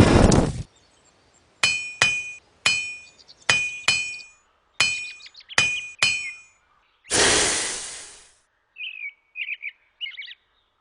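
Hammer striking an anvil about nine times, each blow a sharp ringing clang, after a loud rushing noise that cuts off just after the start. About seven seconds in comes a second-long burst of hiss, then a few bird chirps.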